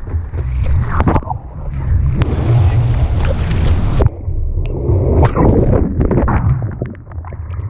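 Churning ocean water and wind buffeting a GoPro's microphone: a deep, heavy rumble under a crackling, gurgling wash of whitewater, dropping off suddenly about four seconds in before building again.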